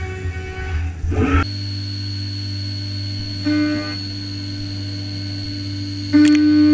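CNC vertical milling machine cutting an aluminium block with an end mill. A rough, noisy cutting sound gives way after about a second and a half to a steady whine over a low hum. The cutting tone swells briefly about halfway through and again near the end, where a few clicks come in.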